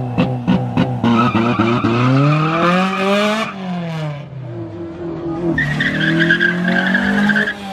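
Car engine revving hard in quick stabs, then climbing steadily in pitch as the tyres squeal in a burnout. The revs drop off about three and a half seconds in, then a second long tyre squeal comes with the engine held high near the end.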